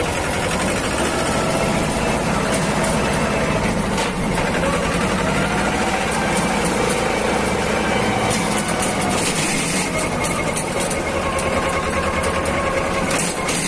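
Mahindra Jivo 245 DI 4WD compact tractor's two-cylinder diesel engine running steadily as it drives along.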